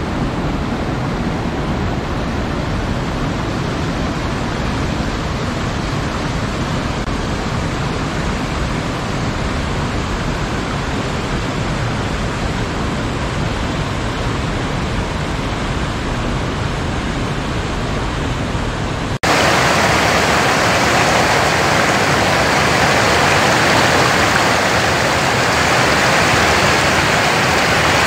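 Steady rush of running water. About 19 seconds in it cuts abruptly to a louder, brighter rush with less low rumble.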